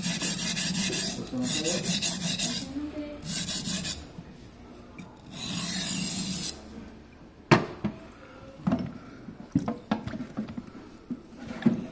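Yanagiba sashimi knife blade being rubbed back and forth on a whetstone during sharpening, in three long spells of gritty rubbing. After that the rubbing stops and there are a few sharp knocks and clicks.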